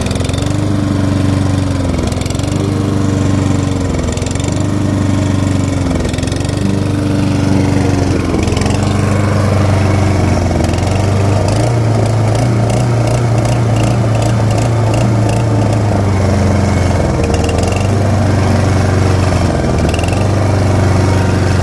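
Stiga Combi SQ 50 lawn mower engine with a rough, hunting idle: its speed rises and falls about every two seconds, the sign of the mower's automatic throttle problem. It then runs steadier, with a couple of brief dips.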